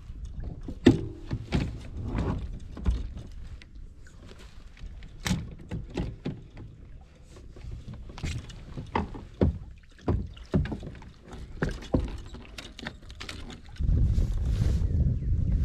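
Handling noise aboard a plastic fishing kayak: irregular knocks, clicks and rattles as a landing net and a fish are worked at the side of the boat. Near the end a louder steady low rumble comes in.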